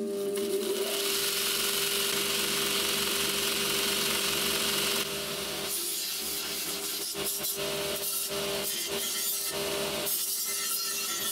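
Belt sander driven by a DWT bench grinder motor, running with a steady hum while the end of a steel tube is ground against the abrasive belt. The grinding rasp is strongest for the first few seconds, eases and comes and goes in the middle, and picks up again near the end.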